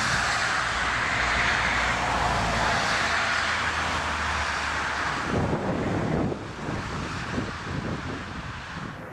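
A landing aircraft's engine noise mixed with wind buffeting the microphone in a strong crosswind. The noise drops to a lower, rougher rumble about six seconds in.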